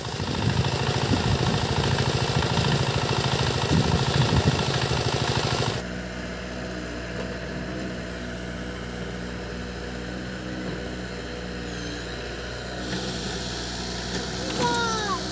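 Diesel irrigation pump engine running with a fast, even beat while water gushes from its outlet pipe. About six seconds in there is an abrupt drop to a quieter, steady engine hum.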